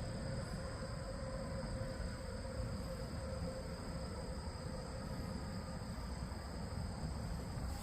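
Outdoor ambience: a steady low rumble with a few faint, steady high-pitched tones above it.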